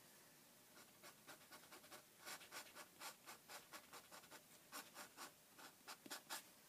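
A knife blade scraping red wax crayon off an illustrated paper page in a quick run of short, faint strokes, about three or four a second, starting about a second in. The crayon is lifting off the paper.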